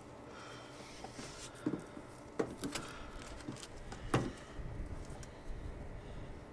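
A few light clicks and knocks, about four over several seconds, from small parts and tools being handled while extending a catch-can hose.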